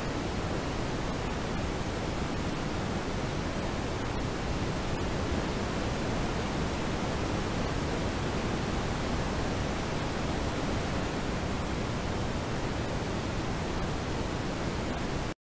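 Steady rushing road and tyre noise inside a moving car's cabin, picked up by the dashcam's built-in microphone, with a couple of faint ticks; it cuts off suddenly near the end.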